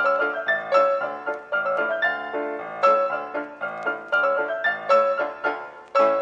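Background piano music: a light melody of quick, evenly paced struck notes.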